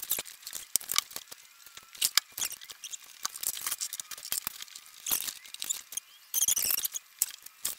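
Irregular clicks and small knocks of hands working among a bass boat's batteries and cable connections in the battery compartment, with a short run of rapid clicking a little over six seconds in.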